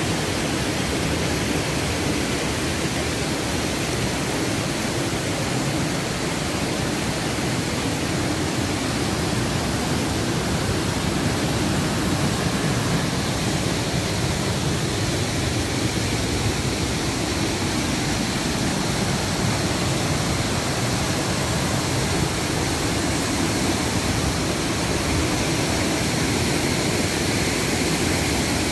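Rushing whitewater of a mountain river and its rocky cascade: a steady, unbroken roar of water.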